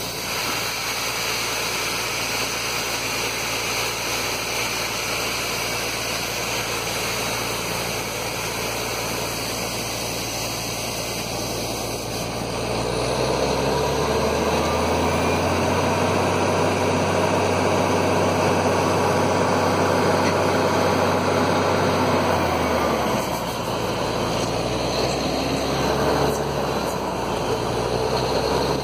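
Borewell drilling rig's diesel engine running steadily, picking up speed and getting louder a little under halfway through, then easing back down about three quarters of the way through.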